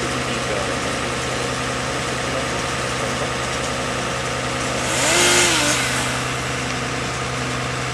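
Aerial ladder fire truck's engine idling steadily, with a brief louder rush of noise about five seconds in.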